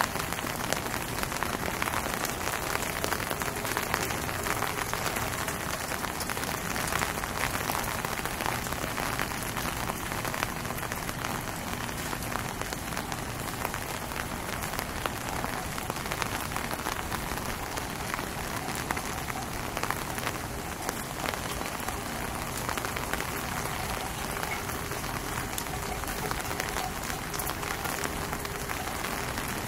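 Steady rain falling, with many separate drop hits close by.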